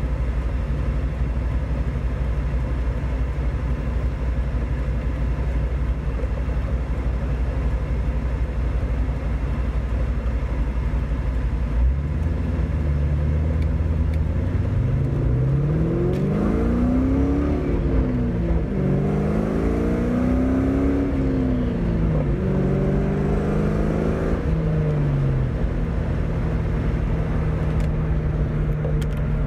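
2001 Ford Mustang with a new aftermarket exhaust, driving: a steady low drone at first, then engine speed climbing and dropping a few times midway before settling into a steady higher note.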